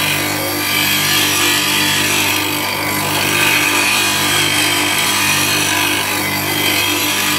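Bench grinder with 8-inch CBN wheels running at about 2,800 rpm, a steady motor hum under the hiss of a turning gouge being ground on the wheel in a sharpening jig. The grinding stops right at the end as the tool comes off the wheel, leaving the motor running.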